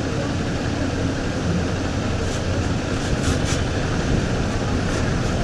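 Steady rumbling background noise, with a few faint light taps around the middle.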